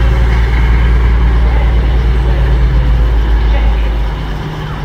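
Underfloor diesel engines of an East Midlands Railway Class 222 Meridian train running with a loud, steady low rumble as the train moves past close by, the rumble dropping away about four seconds in.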